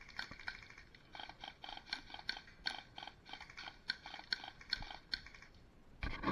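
Airsoft guns firing a string of short, sharp shots at an uneven pace, a few a second, with a louder rushing noise starting near the end.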